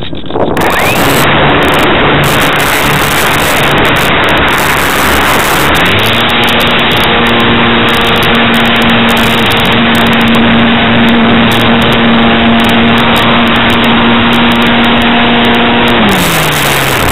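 Electric motor and propeller of a ParkZone Radian Pro glider running in flight under heavy wind rush on the onboard microphone. The motor drone steps up in pitch about six seconds in, holds steady, then winds down near the end as the throttle is cut back.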